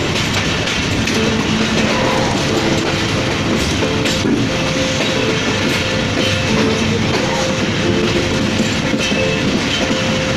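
Pakistan Railways passenger train running along the track, heard from aboard: a steady rumble and clatter of the wheels on the rails.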